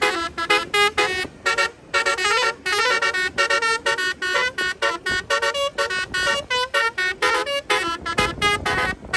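Bus telolet horns (basuri-type musical air horns) playing a fast melody of short stepped notes, several a second. A low rumble swells briefly near the end.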